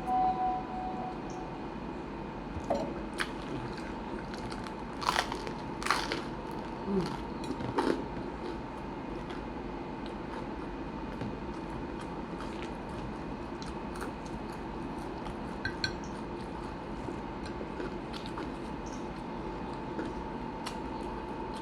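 Close-up mouth sounds of biting and chewing a sandwich, with a cluster of louder crunchy bites in the first half and quieter chewing after, over a faint steady hum.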